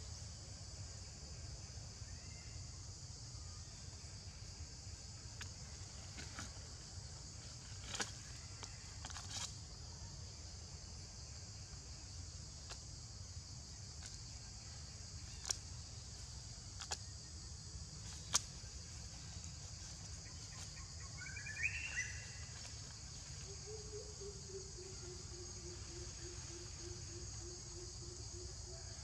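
Outdoor forest ambience: a steady, high chorus of insects over a low rumble, with a few scattered sharp clicks. About two-thirds of the way through a short two-note bird call sounds, and near the end a low hum sets in, dips slightly in pitch and holds steady.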